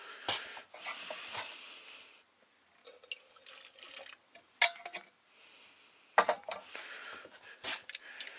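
Water from a steaming aluminium kettle poured into a glass tea mug, with sharp clinks of glass and metal. Near the end, water runs from a washbasin tap into a steel sink and the mug.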